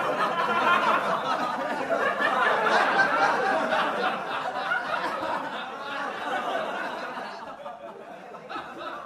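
A crowd of people laughing together, many voices at once, fading out gradually over the last few seconds.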